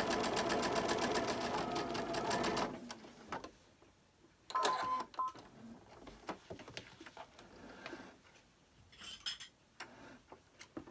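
Electric sewing machine running steadily, sewing a long straight gathering stitch at its longest stitch length, then stopping suddenly about two and a half seconds in. Faint clicks and a brief steady tone follow.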